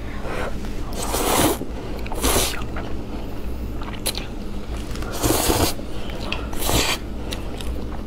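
A person slurping up a mouthful of mixed noodles in four separate slurps of about half a second each, with softer wet chewing sounds between.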